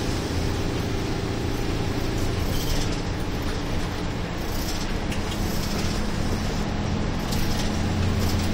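Inside a route bus under way: the diesel engine drones steadily under road and tyre noise. About halfway through, the engine note changes pitch.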